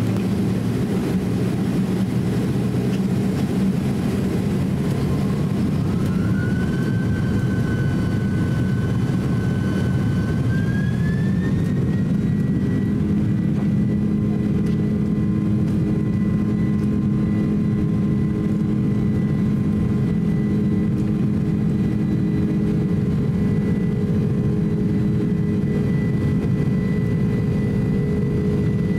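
Cabin sound of a Boeing 767-300 on its takeoff roll. The jet engines' whine climbs in pitch in two steps between about five and twelve seconds in as thrust is set, then holds steady over a deep, constant rumble of the roll.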